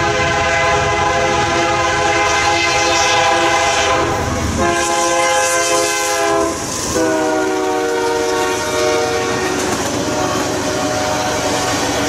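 Diesel freight locomotive's air horn sounding three long blasts as the lead unit passes. The first blast lasts about four and a half seconds, and the last falls slightly in pitch and fades. Under and after the horn, the freight cars rumble and clack over the rails.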